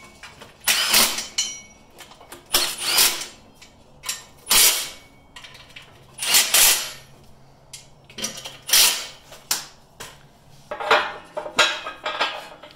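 Milwaukee Fuel cordless power tool driving the axle's mounting bolts into a press jig in short bursts, about seven in all, with pauses between them.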